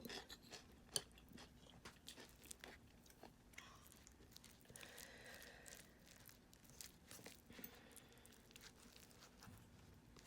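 Faint close-up crunching and chewing of food, with irregular small crackles and clicks.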